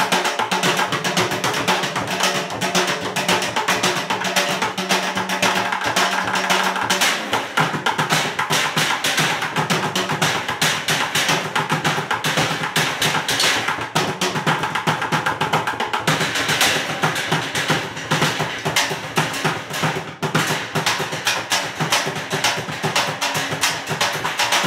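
Bucket drumming: two players strike upturned plastic buckets and metal cans with drumsticks in a fast, continuous rhythm. A low steady hum sits under the drumming for the first seven seconds or so, then stops.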